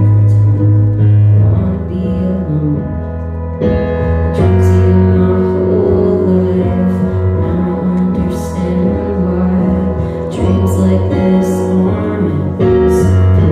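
Live band music: electric keyboard chords over held electric bass guitar notes, with a voice singing.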